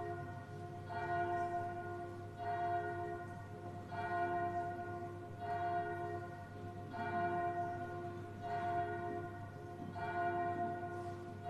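A single church bell tolling, struck about every second and a half at the same pitch, each stroke ringing on as the next begins; a funeral toll for a requiem mass.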